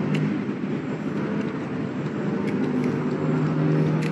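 A steady engine drone with a noisy hiss, holding at an even level throughout.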